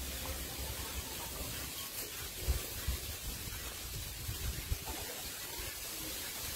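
Steady background hiss, with a few soft low thumps a little over halfway through.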